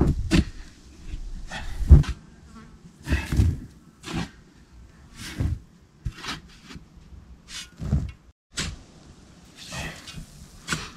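Shovel digging in loose sandy soil: repeated scrapes and thuds as the blade cuts into the sand and the load is thrown out, roughly one stroke a second.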